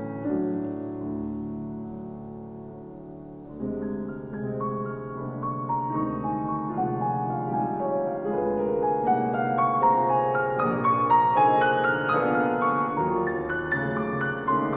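Two grand pianos playing classical music. A held chord fades away for the first few seconds, then quicker notes come in and build steadily in loudness.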